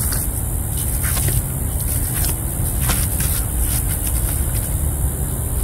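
Socked feet squelching through soft, wet mud, several short steps between about one and four seconds in, over a steady low rumble.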